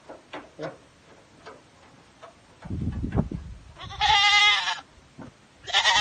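Goat bleating twice, each call about a second long with a quavering pitch: the first about four seconds in, the second starting near the end. A low scuffling sound comes just before the first call.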